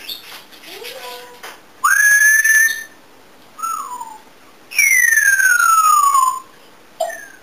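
African grey parrot whistling: a loud rising note held steady, a short falling note, then a long whistle sliding steadily down, with a brief falling note near the end.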